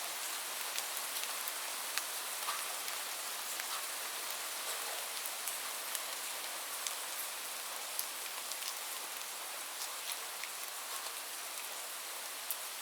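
Light rain falling steadily: a soft even hiss with scattered individual drops ticking sharply on a surface.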